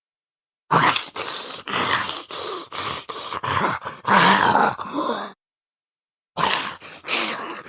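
Male zombie vocal sound effect: a long rasping growl and groan in several pulses, lasting about four and a half seconds after a moment of dead silence. After another second of silence, a second growl starts near the end.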